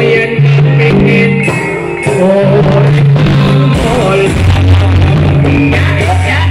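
Loud amplified Javanese tayub dance music: deep bass notes held for about a second each, with a singing voice over them.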